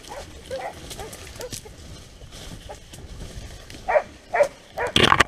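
Polish hound (Gończy polski) baying in the woods: scattered short calls, then a quick run of much louder ones from about four seconds in.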